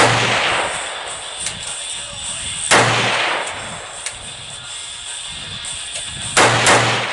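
Zastava M70 ZPAP AK-pattern rifle in 7.62x39mm firing deliberate single shots, each with a trailing echo: one at the start, another about three seconds in, and two in quick succession near the end.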